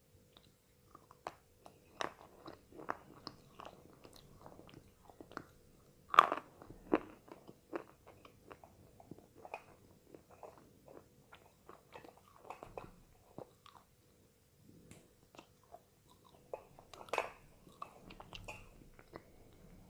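Slate pencil being bitten and chewed: irregular sharp crunches and crackles, with the loudest snap about six seconds in and another burst of crunching around seventeen seconds in.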